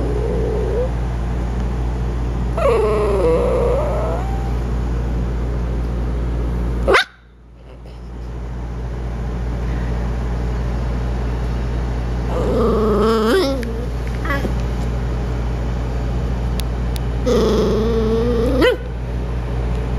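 Puppy's grouchy, drawn-out growling vocalizations, wavering in pitch, in three bouts of a second or two each, over a steady low hum. A sharp click about seven seconds in is followed by a brief drop in level.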